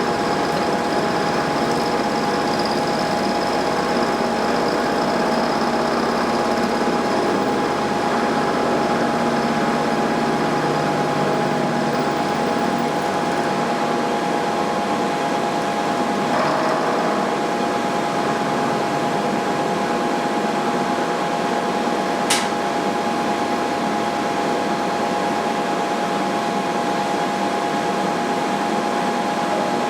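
Milling machine running with a steady whine, its end mill cutting the part as the table is hand-fed in X and Y at once to mill a round profile. One sharp click about two-thirds of the way through.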